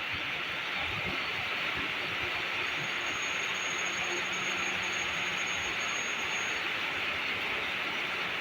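Steady hiss of rain with the low, even hum of a KRL electric commuter train (ex-Tokyo Metro 6000 series), and a faint thin high whine in the middle.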